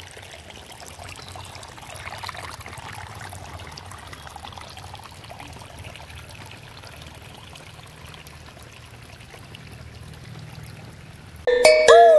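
Shallow stream water trickling and flowing over rocks, a steady watery hiss. Near the end, loud electronic intro music with sweeping synth tones suddenly cuts in over it.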